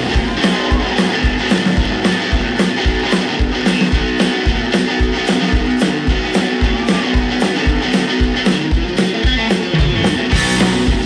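Live blues-rock trio playing an instrumental passage: electric and baritone guitars over a drum kit with a steady, even kick-drum and cymbal beat.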